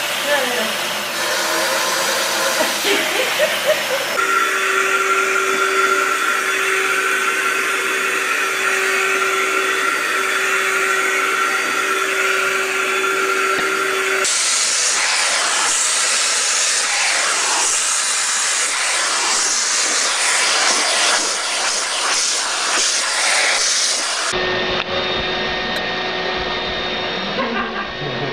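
Vacuum cleaners running steadily as their nozzles are run over cats' fur, a constant drone and airflow hiss. The sound changes abruptly about 4, 14 and 24 seconds in, as one vacuum gives way to another.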